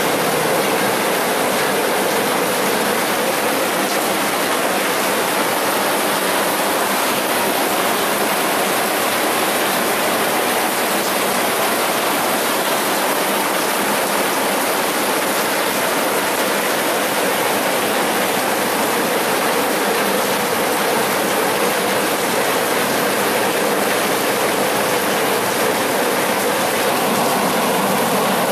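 Heavy rain falling: a steady, even rushing hiss with no breaks.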